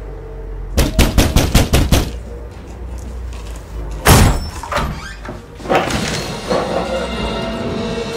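Film soundtrack music with a quick run of about eight sharp hits about a second in and one heavy hit about four seconds in.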